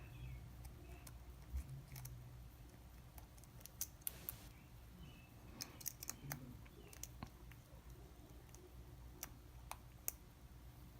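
Faint, irregular small metallic clicks of a lock pick working the pin stack of a Wilson Bohannon padlock under a tension wrench, about a dozen clicks spread unevenly.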